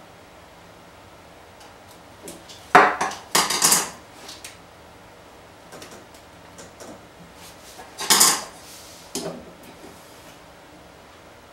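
Clinks and clatters of small hand tools and printer parts being handled and set down on a wooden desk: a quick cluster about three seconds in and another about eight seconds in.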